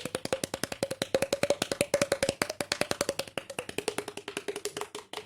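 Fingers tapping rapidly on puffed cheeks, making a fast run of hollow, wood-block-like pops, about nine a second. The pitch of the pops rises slightly and then drops a little toward the end.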